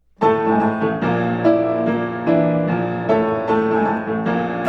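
Piano music with clear, evenly paced notes.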